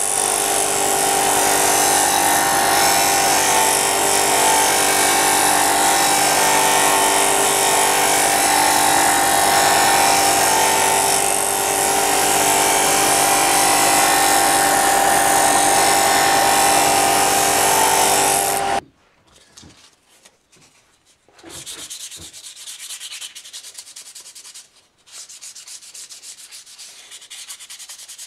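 Powered sanding of wood: a motor runs steadily with a constant whine under the scratchy grit noise, then cuts off suddenly about 19 seconds in. After a short pause comes quieter sanding by hand, with rubbing strokes on the wood.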